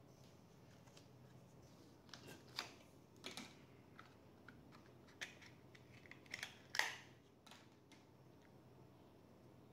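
Small clicks and short scrapes from hands handling a laptop's parts, in two brief flurries, the sharpest click about seven seconds in.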